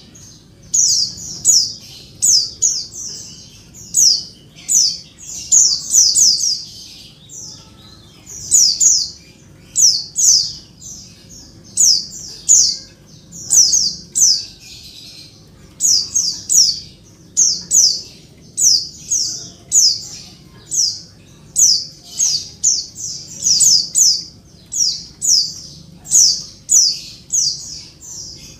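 Female white-eye (pleci) calling noisily for a male: short, sharp, high notes sliding downward, in quick clusters of two or three, repeated about once a second without a break.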